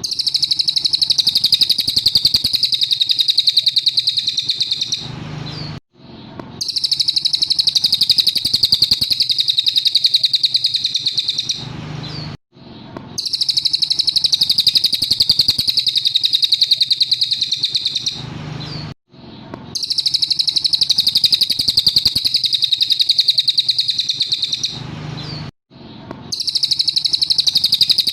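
Cililin singing: long bouts of rapid, high, repeated trilling notes, each about six seconds long, separated by short pauses, four bouts in a row.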